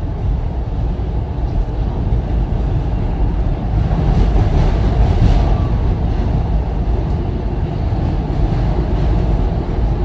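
Steady low rumble inside a passenger rail car, swelling a little about four seconds in.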